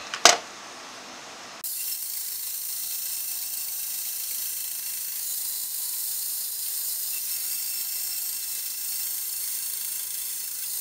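Bandsaw running, its blade cutting the slope on a hardwood guitar headstock ear piece. A steady high hiss starts abruptly about a second and a half in and holds level.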